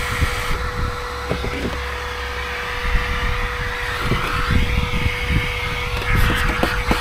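Vacuum cleaner running steadily with a constant hum, drawing air through a long extension hose held into an RV rooftop air conditioner to suck out the pieces of a mud dauber nest jamming its fan. A few short knocks come through.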